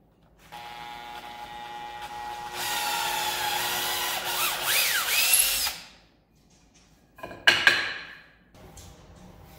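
Makita cordless drill spinning up and drilling into a wooden block, running about five seconds with a steady whine that gets louder partway through and wavers in pitch before stopping. A second short burst of the drill comes about seven seconds in.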